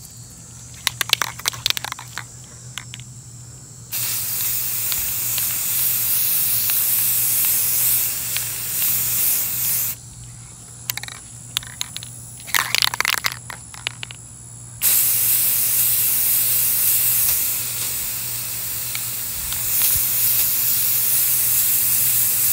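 Aerosol spray can of Rust-Oleum 2X flat white primer spraying in two long hissing passes. In the gaps before each pass, the can is shaken and its mixing ball rattles in quick clusters of clicks, about a second in and again about twelve seconds in.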